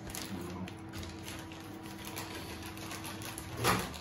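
Close-miked eating sounds: chewing and a soft tortilla wrap rustling in the hands, heard as a run of small, fast clicks and crackles, with one louder burst near the end. A faint steady hum underneath stops near the end.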